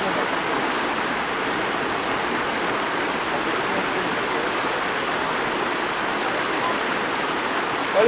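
Shallow stream rushing steadily over a low step of rocks, white water splashing.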